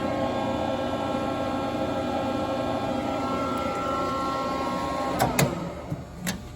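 Steady machine hum made of several fixed tones. It drops away about five and a half seconds in, around a few sharp clicks or knocks.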